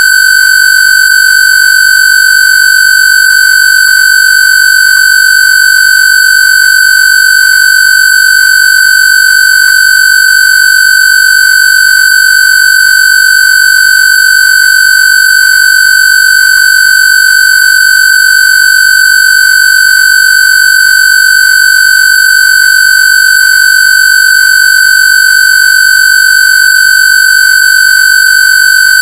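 A steady, loud, high-pitched electronic square-wave tone with a buzzy stack of overtones, held at one pitch: a synthesized Rife/AWG frequency track.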